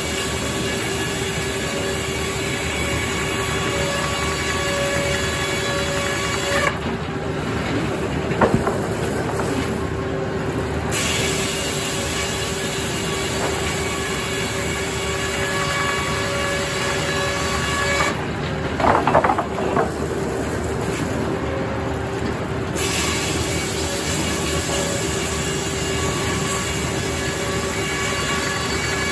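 Circular sawmill sawing poplar logs: the blade running in the cut with a loud, steady noise and a constant hum underneath. Twice the full cutting noise falls back for about four seconds, about 7 s in and again about 18 s in, with a few knocks and a short squeal, before the next cut picks up.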